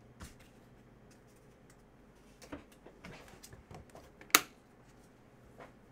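Scattered light clicks and taps of small hard objects being handled at a desk, with one sharp click about four and a half seconds in.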